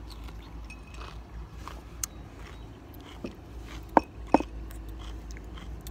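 Mouth sounds of people tasting a drink: faint small clicks, then two sharp lip smacks about four seconds in, over a low rumble of wind on the microphone.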